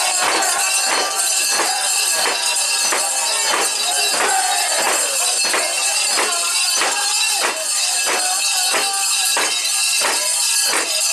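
Metal rings and fittings of a portable shrine (mikoshi) jangling in a steady beat, a little under two clanks a second, as the bearers sway and bounce it. Voices chant or sing over the jangling.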